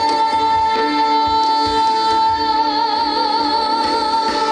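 Live trot music: one long note held with vibrato over the backing track.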